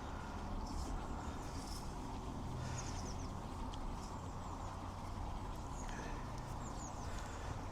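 Quiet background with a steady low hum and a few faint, short bird chirps.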